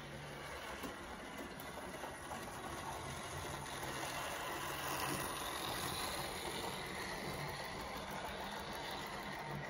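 OO gauge model train running along the track, with a steady whirr and the rattle of wheels on the rails, growing a little louder near the middle.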